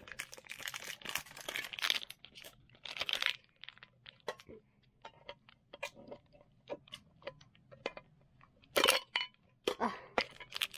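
Stiff clear plastic blister packaging crunching and crackling as it is cut open with a blade to free a Pokémon mini tin. It starts with about three seconds of dense crackling, goes on with scattered sharp snaps and clicks, and ends with louder crunches near the end.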